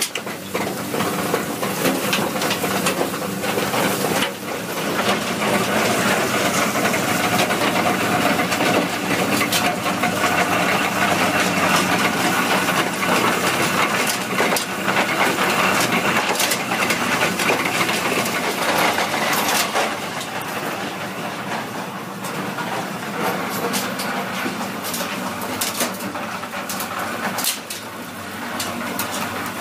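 Komplet M5000 recycling crusher running while it crushes brick, concrete and asphalt rubble: a steady mechanical run with frequent sharp cracks and rattles of the material being broken and carried on the conveyor, somewhat quieter from about two-thirds in.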